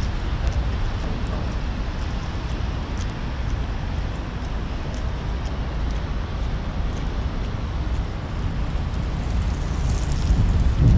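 Steady city traffic noise from cars on a rain-wet road, an even wash of tyre and engine sound with a low rumble throughout.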